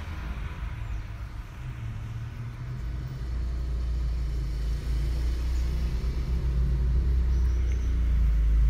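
Low steady rumble, growing louder from about three seconds in.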